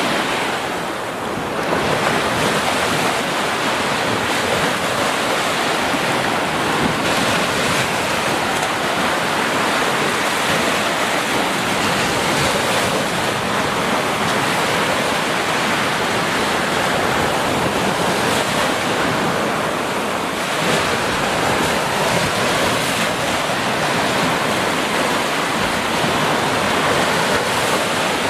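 Small ocean waves breaking and washing up a sandy beach: a steady rushing surf that ebbs briefly now and then.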